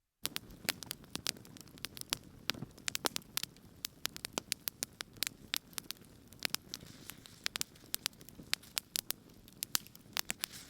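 Wood campfire crackling, with many irregular sharp pops and snaps over a steady low rush of burning.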